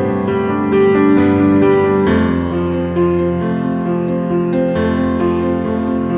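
Instrumental background music: a keyboard melody of held notes changing every half second or so over sustained lower notes.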